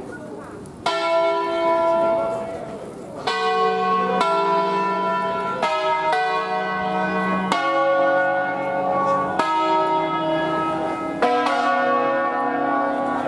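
Five-bell church peal in B, Barigozzi bronze bells cast in Milan in 1937, rung by rope in the Ambrosian full-circle system. The first stroke comes about a second in, then the bells strike one after another at uneven intervals, each note ringing on under the next.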